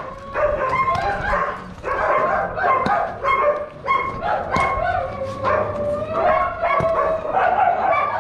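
Many shelter dogs barking and yelping at once, their calls overlapping in a nearly unbroken chorus at several different pitches.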